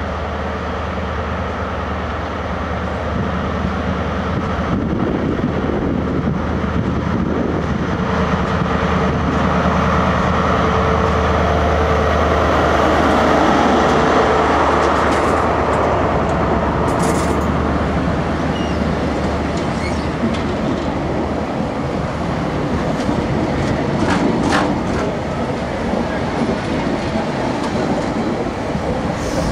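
First Great Western HST (InterCity 125) running slowly alongside the platform. The leading Class 43 power car's MTU V16 diesel engine hums, loudest about halfway through, then fades as the coaches roll past with a few clicks of wheels over rail joints.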